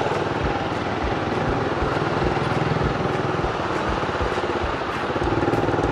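Suzuki Raider R150 carburetted motorcycle engine running steadily at low revs in slow traffic.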